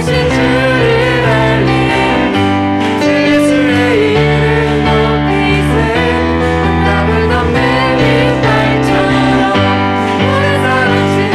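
Contemporary worship song played by a band, with bass and guitar chords changing about every two seconds and singing voices over them.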